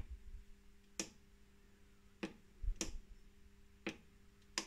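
Ninja multi-cooker control-panel buttons being pressed to set the air-crisp temperature and time: about five short, sharp clicks at uneven intervals.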